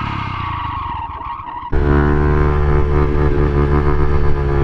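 Motorcycle engine heard while riding: at first quieter with its pitch easing slowly down, then about a second and a half in it jumps abruptly to a louder, steady run at a constant pitch.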